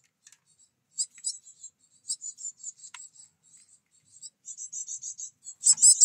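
Great tits calling at a feeder: series of short, high-pitched notes in quick bursts, growing faster and louder near the end.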